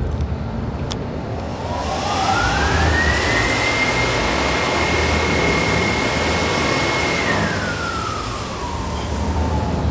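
Confetti tornado machine's blower running, with a loud rush of air as it blows confetti. A motor whine rises over about two seconds, holds steady, then falls away near the end as the blower winds down.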